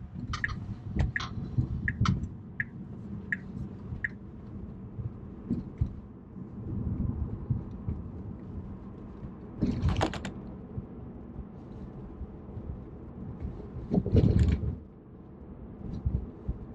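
Road and tyre rumble inside the cabin of a moving Tesla Model 3, with no engine note. In the first few seconds there is a run of light ticks about two-thirds of a second apart that fade out. About ten seconds in comes a sharp knock, and around fourteen seconds a longer, louder thump.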